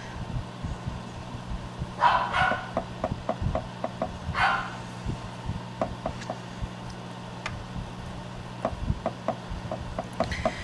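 A dog barking twice in the background, about two and four and a half seconds in. Under it, light clicks and taps of a stick stirring melted embossing powder in a melting pot, and a steady low hum.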